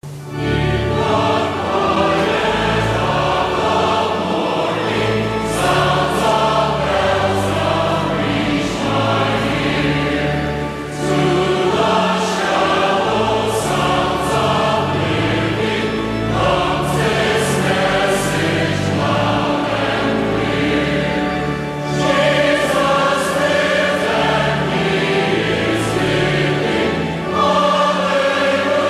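Choir singing a hymn in long sustained phrases, with steady low notes held underneath and short breaks between phrases. This is the closing hymn of the service.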